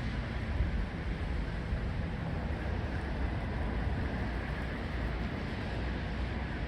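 Strong wind buffeting the microphone: a steady low rumble with a hiss above it.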